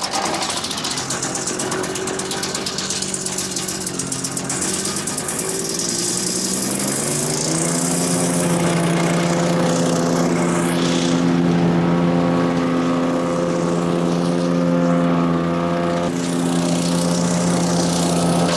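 Small single-cylinder engine of a PowerKing wood chipper shredder (Kohler CH440, 14 HP) running. Its pitch climbs over a few seconds as it speeds up, then holds steady at high speed.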